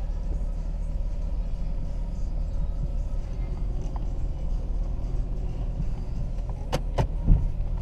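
1999 Jeep Cherokee engine idling steadily. Near the end come two sharp clicks in quick succession, then a low thump.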